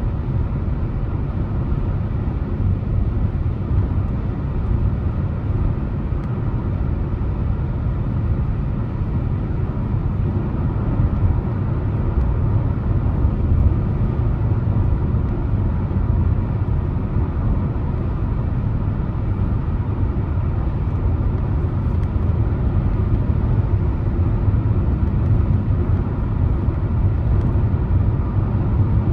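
Steady low road and engine noise of a car being driven at a constant pace.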